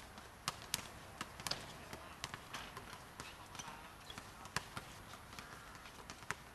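Basketball bouncing on a hard court in irregular sharp thumps, with players' voices calling out in the background.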